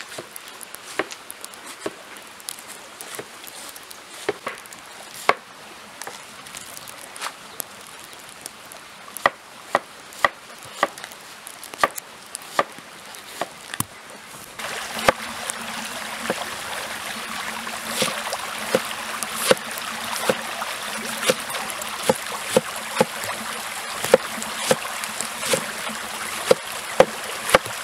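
A large cleaver shredding cabbage on a wooden cutting board: sharp knocks as the blade strikes the board, irregular at first, then a steadier one or two chops a second. About halfway through, a steady hiss underneath grows louder.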